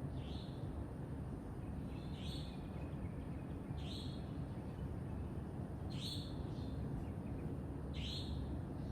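A bird repeating a short call five times, about every two seconds, each a quick downward sweep that ends in a brief high note. A steady low rumble runs underneath.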